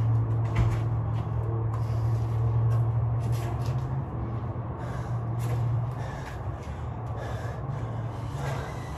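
A steady low hum with a person breathing hard and moving through burpee reps in a weight vest, and a single thump about half a second in.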